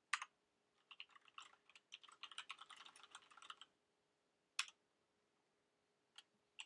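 Typing on a computer keyboard: one key press, then a quick run of keystrokes lasting about three seconds, then a few separate key presses.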